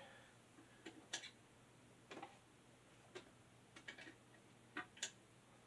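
Faint, irregular clicks and light ticks from 45 rpm records being handled while the next side is picked out for the record player, about ten in all, spread unevenly.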